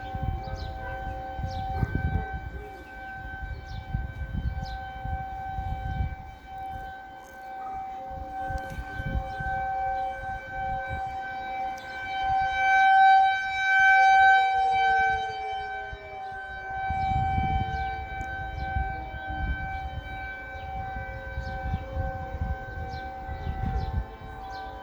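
Several outdoor warning sirens, T-128 sirens and a 2001 DC siren, sounding a steady wail together that swells and fades as the rotating heads sweep, loudest about halfway through. Around the middle, one siren's pitch winds down.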